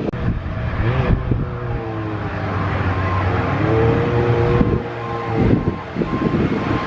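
Engine of a passing motor vehicle running with a steady low hum, its pitch rising and falling, with a faint repeated beeping from about halfway through.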